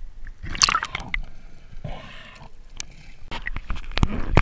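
Water splashing and gurgling around the camera as it goes from the surface to underwater, with a scatter of sharp clicks.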